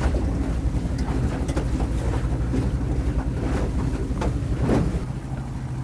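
A motorboat's engine running steadily while the boat is underway, with wind buffeting the microphone and water splashing. About five seconds in, the sound drops in level and the engine hum changes.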